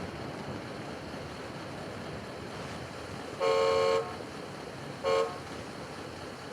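A horn honks twice: a half-second blast about three and a half seconds in, then a short toot about a second later, over a steady background hiss.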